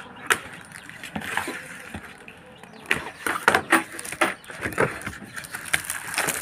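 Paper parcel wrapping rustling and crackling as it is cut and pulled open, with a dense run of sharp crackles from about three seconds in.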